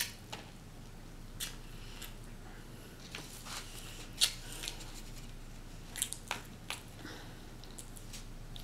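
A large, soft-bunned burger squeezed down between the hands, giving irregular soft wet squishes and sharp little clicks. Mouth and lip smacks come in between, the loudest about four seconds in.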